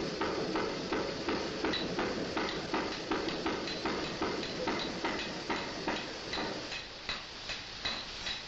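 Water-powered trip hammer striking hot iron in a steady rhythm, about two to three blows a second, each blow ringing briefly.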